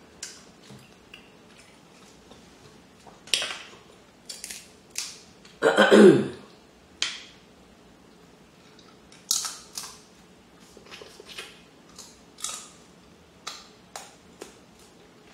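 Close-up eating sounds of a person eating seafood boil with her fingers: scattered short, wet smacking and sucking sounds of lips and fingers, with one longer, louder slurp about six seconds in.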